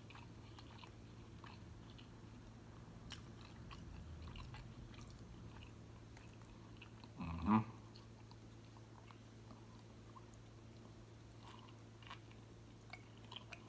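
Faint, close-miked food sounds: lime wedges squeezed over soft tacos with small wet clicks, then a bite into a taco near the end, over a steady low hum. A short vocal sound comes about halfway through.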